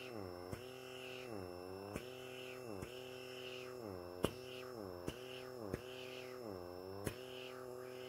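Handheld pore vacuum's small suction motor humming on the skin of the nose. Its pitch repeatedly sags and then jumps back up with a small click, about seven times, as the suction nozzle keeps failing to stick on.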